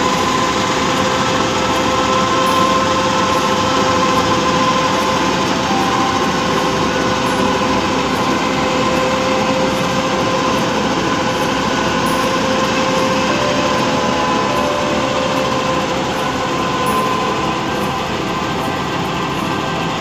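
New Holland Clayson 8080 combine harvester running while it cuts wheat: a loud, steady mechanical din of engine and threshing machinery, with a steady high whine through it.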